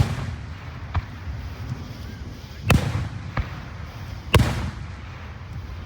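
Fireworks shells bursting overhead: five sharp bangs a second or two apart, three of them loud, each trailing off in a rumbling echo.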